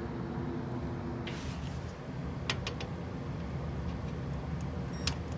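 A few light clicks and taps as the under-tray screws are worked with a cordless driver: a short group about two and a half seconds in and another near the end, over a steady low hum.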